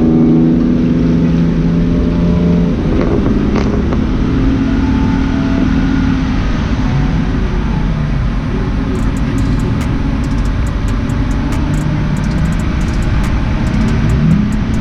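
Car engine running at speed under steady road rumble, its note sliding up several times as it accelerates.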